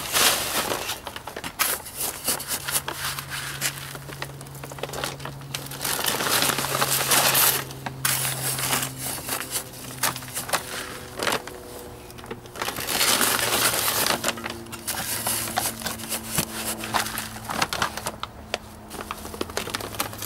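Metal hand scoop scraping through crushed, granular biochar in a plastic bucket, and the char pouring into a plastic bag that crinkles as it is held open. The crunching and rustling comes in several long stretches as scoop after scoop is filled and tipped in.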